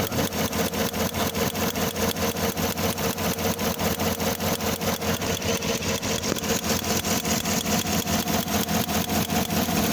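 2015 Chevrolet Tahoe's 5.3-litre V8 idling roughly with a misfire, its sound pulsing in a steady uneven beat about five times a second. The owner traced the misfire to a damaged engine control module rather than the plugs, coil, injector or compression.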